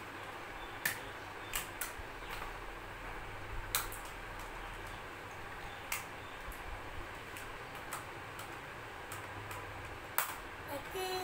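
Plastic toy train track pieces clicking and clattering as they are handled, fitted together and set down on a tile floor: a few scattered sharp clicks over a steady low hum.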